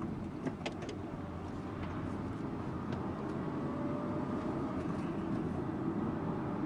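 Subaru Impreza Sports Wagon (GG2) driving along, its boxer engine and the road noise making a steady rumble. A few faint light clicks come about half a second in.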